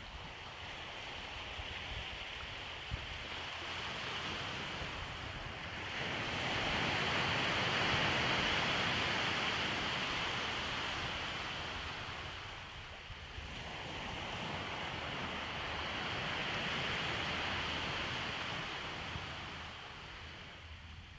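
Waves breaking and washing up the beach: the surf swells suddenly about six seconds in, ebbs, then swells again and fades near the end.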